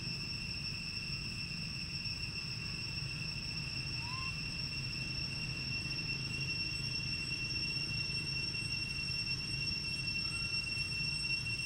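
Insects giving a steady high-pitched drone over a low outdoor rumble, with two faint short rising chirps, one about four seconds in and one near the end.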